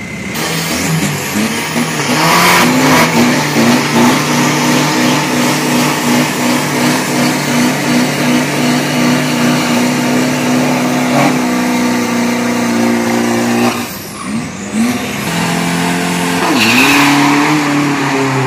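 Drag-race pickup truck doing a burnout, its engine held at high revs while the rear tyres spin and smoke. The engine note stays steady for about eleven seconds, drops off about three-quarters of the way through, then rises in a shorter rev near the end.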